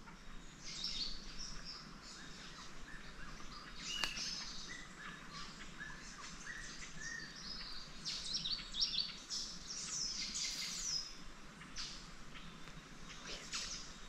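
Forest birds calling and singing: a steady stream of short, high chirps and trills, some sliding down in pitch, from several birds at once. A single sharp click sounds about four seconds in.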